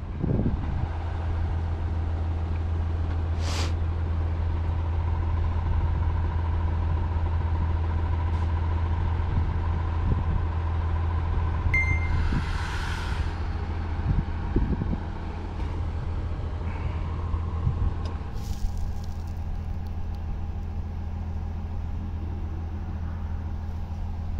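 A large engine running steadily with a low hum, and a short hiss of air about halfway through.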